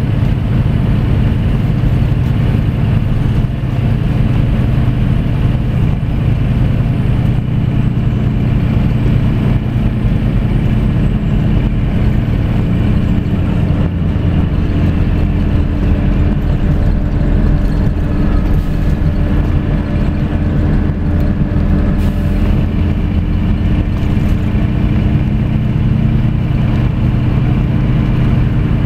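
Scania coach's diesel engine and tyre noise inside the passenger cabin near the rear, a steady low drone at constant pitch while cruising on the highway.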